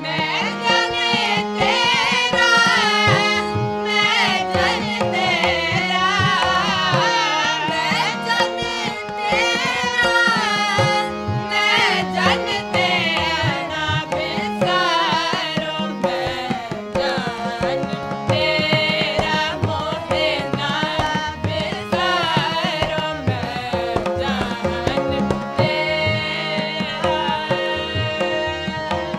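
Sikh kirtan: voices singing together over two harmoniums holding steady chords, with tabla playing a running rhythm.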